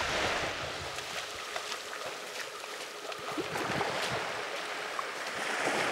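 Wind and sea-water ambience: a steady hiss of wind with rushing, lapping water, and a few faint ticks scattered through it.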